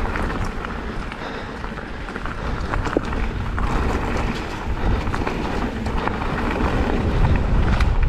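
Specialized Turbo Levo e-mountain bike ridden along a loose forest trail, heard from a helmet-mounted camera. Heavy wind rumble on the microphone mixes with tyre noise and scattered clicks and rattles from the bike over rough ground.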